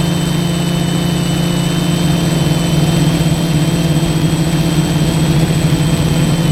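F450 quadcopter's four brushless motors and propellers droning steadily in flight, heard from the craft's onboard camera, with wind rumble on the microphone underneath. The hum grows a little louder partway through.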